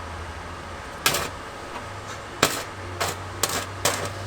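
WD-40 aerosol sprayed in about five short hissing bursts, the lubricant that lets the rubber exhaust hangers slip off their mounts. A steady low hum runs underneath.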